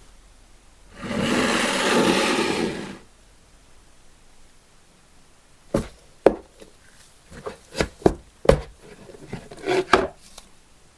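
Hand work on a small object: a rubbing, scrubbing noise for about two seconds, then a string of about ten sharp knocks and taps.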